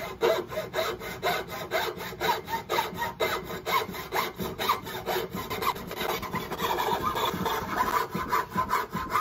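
Hacksaw cutting through a wooden board held in a vise: rhythmic rasping strokes of the blade, about four a second.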